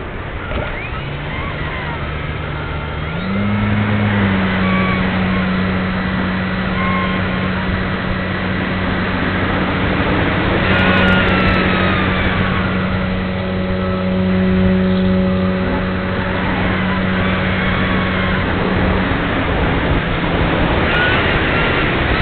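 Air rushing over the wing-mounted camera of a Parkzone Radian Pro glider in flight, with the steady drone of its electric motor and folding propeller. The drone steps up in pitch about three seconds in, then holds level and stops a few seconds before the end.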